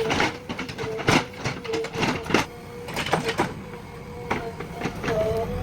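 JCB 3DX backhoe loader working: a steady engine hum with a run of irregular clanks and knocks, densest in the first two seconds or so.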